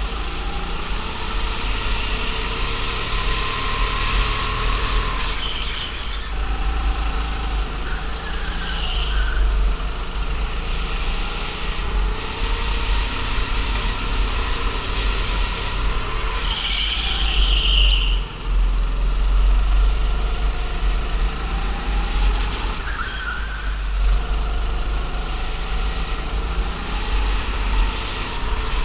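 Go-kart engine running at speed. Its pitch rises and falls repeatedly as the kart accelerates out of the corners and lifts off into them.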